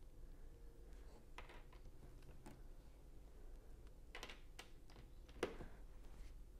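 Faint, scattered clicks and taps of small Lego pieces being handled and pressed into place, the loudest about five and a half seconds in.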